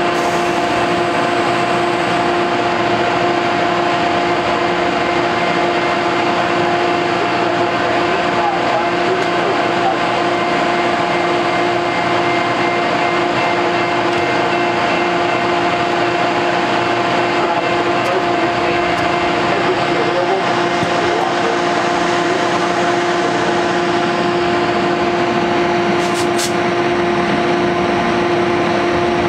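Metrolink commuter train idling at the platform: a steady, loud mechanical hum with a constant low tone that holds unchanged. Near the end there are a couple of faint clicks.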